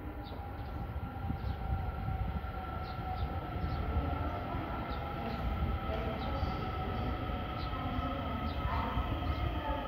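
Electric passenger train rolling past under overhead wires, a steady low rumble with a steady motor whine, growing slightly louder, and light regular ticking from the wheels and track.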